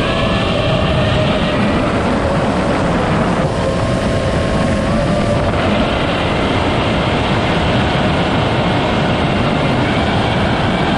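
An iFlight Nazgul5 V2 FPV quadcopter's motors and propellers running in flight: a steady whine over a dense rush of noise, its pitch stepping up and down a few times with throttle changes.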